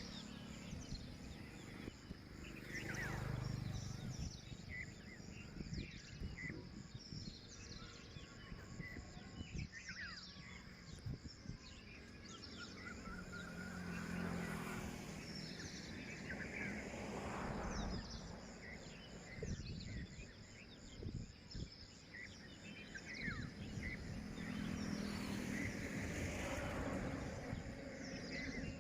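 Outdoor ambience with many short, scattered bird chirps over a low rumble of background noise that swells and fades.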